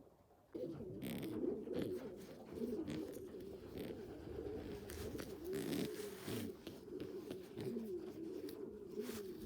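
Several pigeons cooing together, overlapping low, warbling coos that start about half a second in, with brief scratchy noises now and then.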